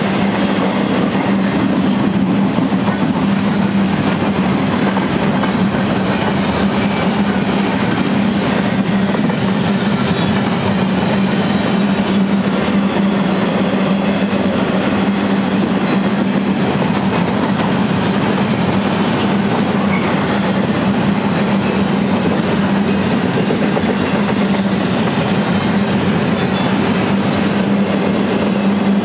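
Empty double-stack well cars of a freight train rolling past at speed: a steady rumble and clatter of wheels on rail joints, with a constant low hum under it.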